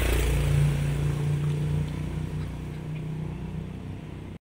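A vehicle engine running with a steady low hum that slowly fades, cut off abruptly near the end.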